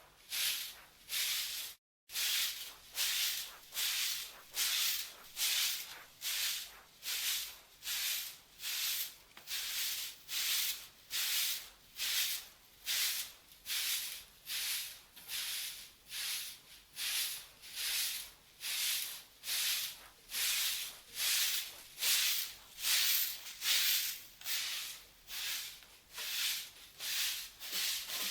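Sapu lidi, a stiff broom of palm-leaf ribs, sweeping a yard in steady, regular strokes, about one and a half scratchy swishes a second. The sound cuts out briefly about two seconds in.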